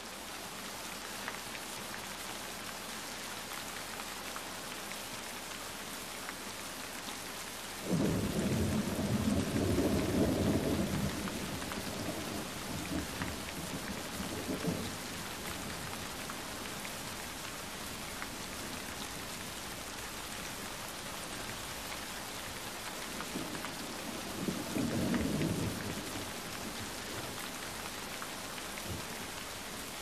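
Steady rain falling, with two low rumbles of thunder: a longer one about eight seconds in and a shorter one near the end.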